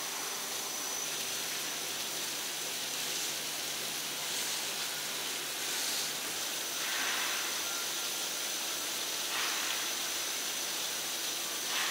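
Steady hiss of foam production line machinery running, with a thin high steady whine and a few faint brief swells.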